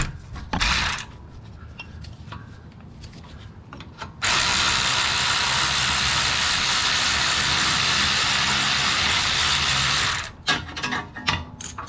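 A handheld power tool runs steadily for about six seconds, starting and stopping abruptly, as it undoes a rear brake caliper bolt. Tool clicks and knocks come before and after it.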